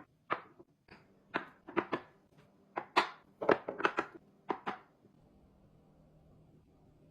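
Objects being handled and set down: a quick, irregular run of about a dozen clicks and knocks over the first five seconds, then a faint steady hum.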